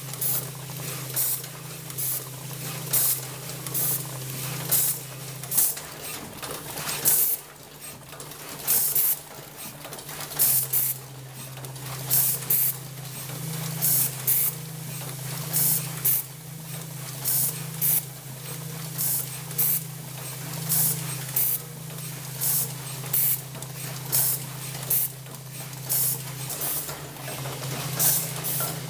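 Automatic circuit-breaker assembly machine running: its pneumatic cylinders and valves give short, sharp hisses of exhaust air about once a second, over a steady low machine hum.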